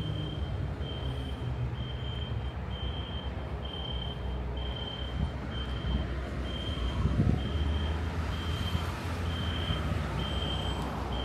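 A vehicle's engine rumbling, with a single high electronic beep repeating evenly about three times every two seconds over it.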